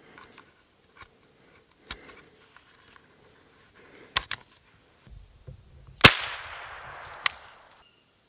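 Small metallic handling clicks as a single round is loaded into a scoped semi-automatic rifle, then about six seconds in one rifle shot, fired to sight in the scope, that echoes and fades over about a second and a half, with a sharp click partway through the echo.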